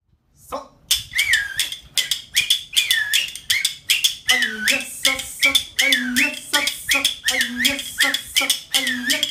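Finger whistling (Okinawan yubibue) in a short falling-and-rising phrase repeated about once a second, over rapid, evenly beaten clicking of sanba, Okinawan hand-held clappers. About four seconds in, a lower tone joins each phrase.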